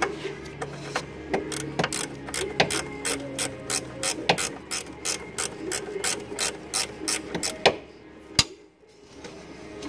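Ratchet wrench clicking in quick, even strokes, about four clicks a second, as a 10 mm radiator mounting bolt is undone. It stops near the end with one last sharp click.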